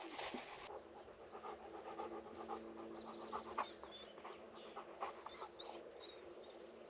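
Faint panting breaths repeating throughout, with a few short, high chirps in the middle.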